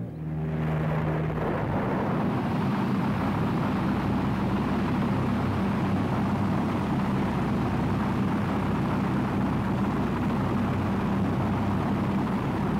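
Rocket engines at liftoff: a steady, dense rushing noise with a low rumble beneath it. A held music note fades out in the first second or so.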